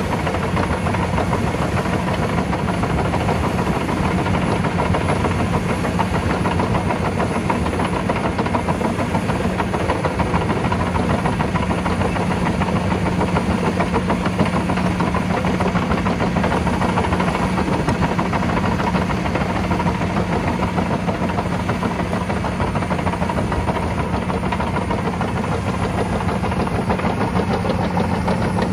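Caterpillar D7E diesel-electric crawler dozer running steadily at work: an even, low engine hum with broad noise over it, unchanging throughout.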